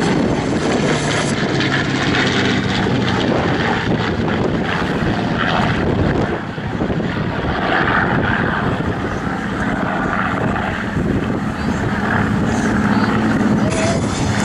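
Rolls-Royce Merlin piston engines of a Spitfire and a Hurricane droning steadily as the two propeller fighters fly past in formation, with a brief dip in level about six seconds in.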